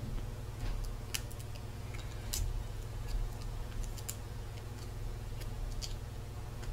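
Craft knife blade giving a few scattered sharp clicks and scrapes as it trims at a small piece held in the fingers, over a steady low hum.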